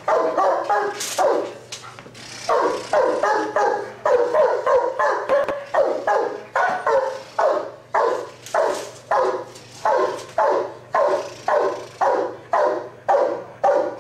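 Giant schnauzer barking over and over in a steady rhythm of about two barks a second, with a short pause near the start.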